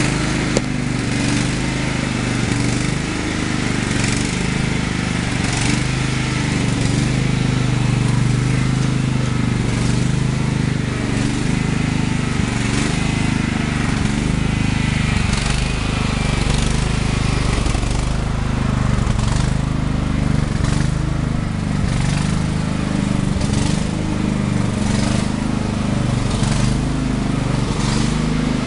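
An engine running steadily, a low continuous drone with no change in pitch.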